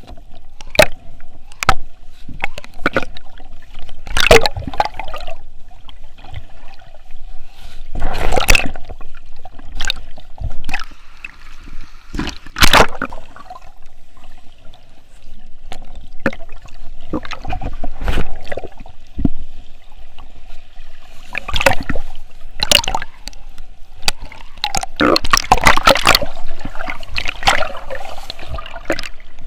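Water sloshing and gurgling around a snorkeler's camera, with irregular sharp splashes throughout.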